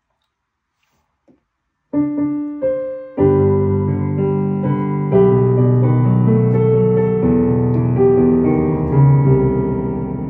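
Digital piano played with both hands, sustained chords under a melody, beginning about two seconds in after near silence.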